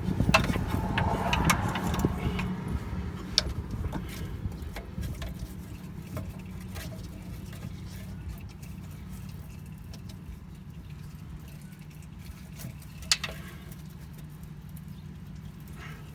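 Engine oil pouring and dripping into a drain pan, louder for the first couple of seconds and then easing off, with a few sharp clicks of handling.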